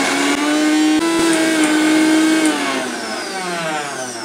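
Prestige Regal 750 W mixer grinder motor running with carrot in its juicer jar, a steady whine; about two and a half seconds in the pitch starts falling as the motor spins down. The carrot pulp is packed against the strainer walls, so the blade spins almost free.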